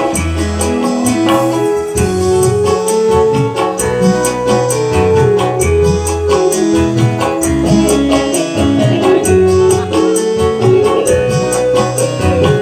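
Live band playing an instrumental interlude: an electronic keyboard carrying the melody in held notes over a bass line and a steady hand-drum beat.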